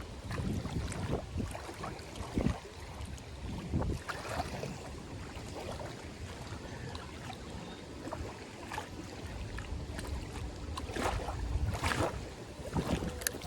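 Wind rumbling on the microphone over running water, with a few short knocks: handling noise as the snagged line is worked.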